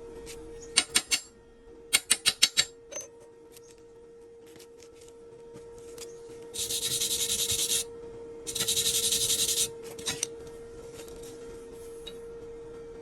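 Hand work on a steel weldment: three quick sharp metal taps, then five more about a second later, then two scrubbing, rasping bursts of about a second each, all over a steady hum.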